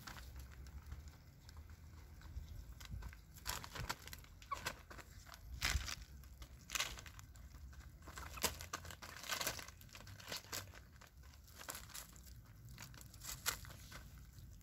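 Several hens pecking food off newspaper spread on the ground: irregular taps of beaks and crinkling, rustling paper.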